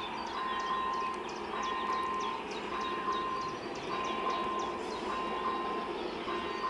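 ČSD class 477 steam locomotive running with a train in the distance, a steady rumble under a beeping tone that repeats about once a second, with quick high chirps over it.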